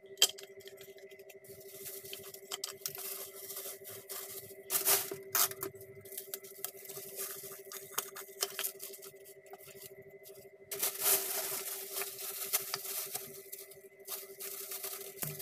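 Plastic bag packaging crinkling and rustling as hands unwrap and handle plastic pump bottles, with scattered clicks and scrapes. The crinkling is denser and louder from about eleven seconds in, over a steady background hum.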